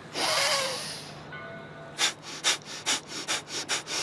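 A long, loud breath, then rapid forceful breaths pushed out through the nose, quickening to about four a second: yogic rapid-exhalation breathing practice.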